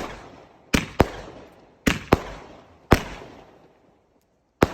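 Fireworks going off: a string of about seven sharp bangs at uneven intervals, some close together in pairs, each trailing off in an echo. There is a longer gap before the last one, near the end.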